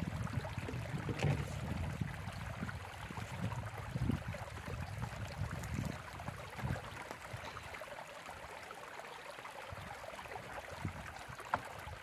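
A stream running steadily, with a gusty low rumble of wind on the microphone that eases off in the second half.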